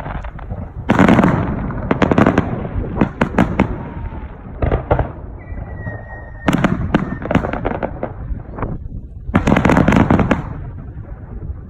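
Aerial fireworks shells bursting in quick succession, with loud volleys of sharp crackling about a second in, around six and a half seconds in and near ten seconds, over a continuous low rumble of booms and echoes.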